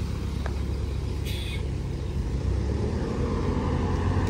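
Coach bus's diesel engine running at low revs as the bus creeps forward over a rough, stony dirt road, a steady low rumble that grows a little louder near the end. A brief hiss sounds about a second in.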